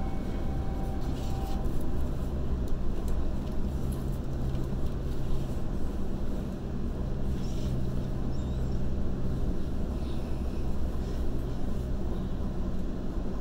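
Waratah A set double-deck electric train running between stations, heard from on board: a steady low hum with rail and running noise and a few light clicks.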